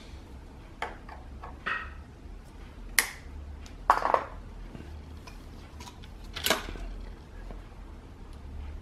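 Scattered light clicks and taps, about five, from hand work at a dirt bike's front brake caliper as the bleed valve is tightened with a wrench and the bleed hose is pulled off, over a low steady hum.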